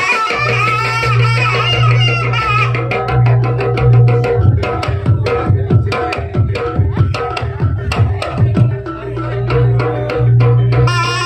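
Live East Javanese jaranan music: hand drums played in quick, dense strokes over a sustained low tone. A wavering melodic line sounds over the first couple of seconds and comes back near the end.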